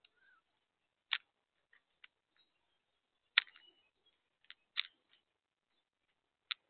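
Mourning doves pecking at mixed seed in a plastic feeder tub: sharp, irregular beak clicks and taps, about five clear ones with fainter ticks between.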